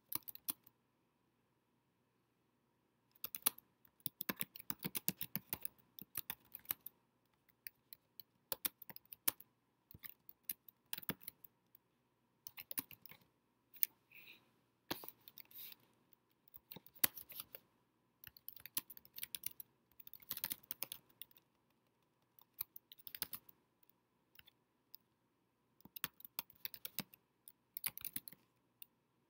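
Typing on a computer keyboard: quick runs of key clicks in bursts, with short pauses between words and phrases.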